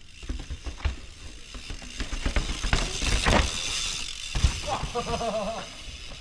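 Mountain bike ridden down through a rock garden: tyres knocking and skittering over rocks and roots, with the bike's chain and freehub rattling and ticking, loudest about three seconds in.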